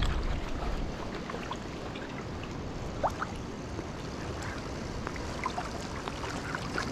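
Trout stream water flowing steadily, with a few faint ticks and drips on top. Wind rumbles on the microphone in the first second, then dies away.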